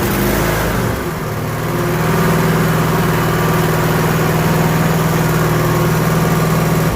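Cub Cadet 7000-series zero-turn mower's 24 hp engine running just after a cold start, settling into an even, steady run about a second in. With the choke cable adjusted so the choke plate closes fully, it starts up perfectly.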